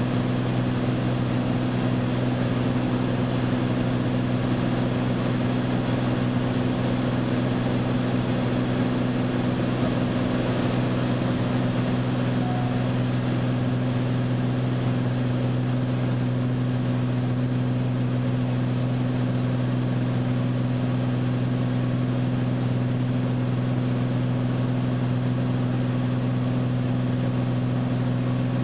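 Single-engine light aircraft's piston engine and propeller droning steadily in cruise, heard from inside the cockpit, with a constant low hum and wind rush and no change in pitch.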